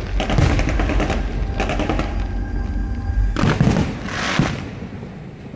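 Fireworks going off: several groups of bangs and crackles about a second apart, dying away near the end.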